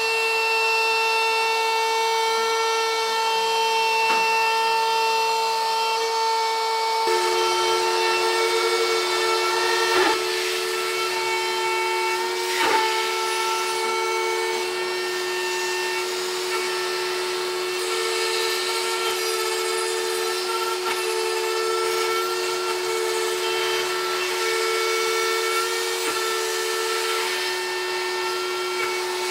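Shapeoko CNC router's spindle whining steadily as a 6 mm single-flute end mill cuts aluminium plate, taking a half-millimetre depth of cut. A second steady tone joins about seven seconds in, and two short sharp clicks come near the middle.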